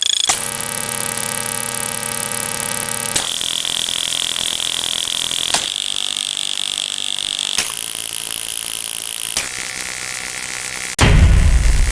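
A string of different stock sound effects, each held for two or three seconds and cut abruptly to the next with a click: first a buzzing tone, then several high steady tones and hums. A loud low rumble starts about eleven seconds in.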